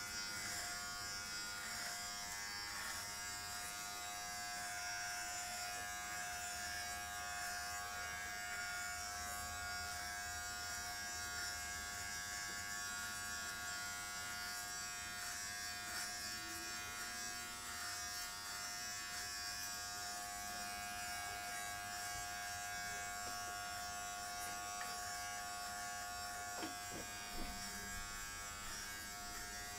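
Philips Norelco Multigroom 7000 electric trimmer running with a steady buzz as it shaves short hair off a man's scalp.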